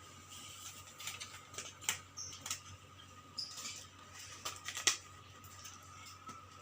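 Scattered small clicks, taps and rustles of equipment being handled and set down, with a faint steady high whine underneath.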